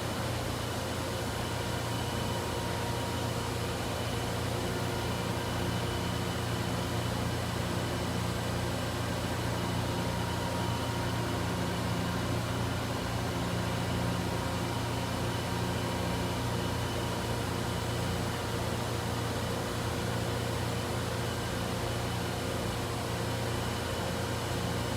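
Froriep 393-inch CNC vertical boring mill running: a steady machine hum with several steady tones above it.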